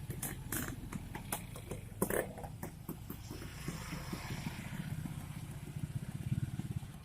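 A motorcycle engine running steadily, with scattered clicks and clatter over it.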